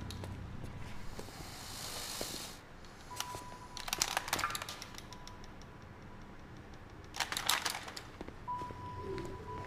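Horror-film sound design: a thin, steady high tone that comes and goes, broken twice by short bursts of dense crackling clicks, about four seconds in and again near the end, over a faint hiss at the start.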